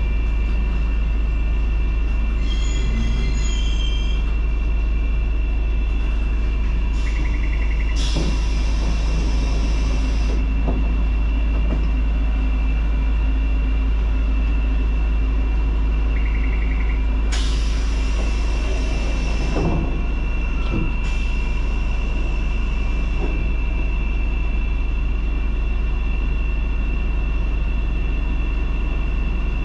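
Randen (Keifuku Electric Railroad) railcar running along the Kitano Line, heard from inside at the front: a steady low rumble with a constant high whine. A short hissing noise comes twice, about 8 and 17 seconds in, each lasting two to three seconds.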